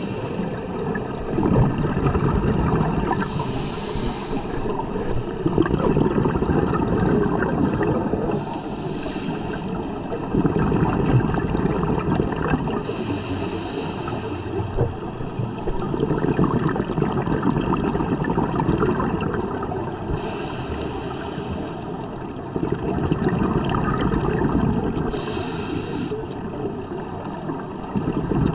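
Scuba regulator breathing heard underwater: a hissing inhale about every five seconds, with the bubbling gurgle of exhaled air rising between breaths.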